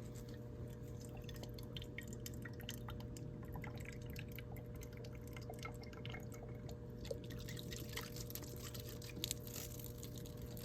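Water dribbling and dripping from an outdoor wood boiler's sample valve into a small sample bottle, with many small splashes over a steady low hum.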